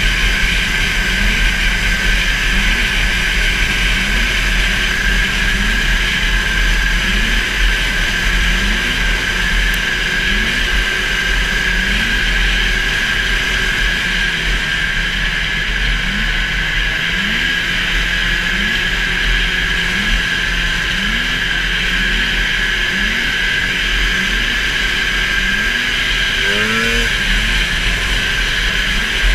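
440 super stock racing snowmobile's two-stroke engine running hard at steady high revs, heard on board with steady wind rush; a brief rising rev about three seconds before the end.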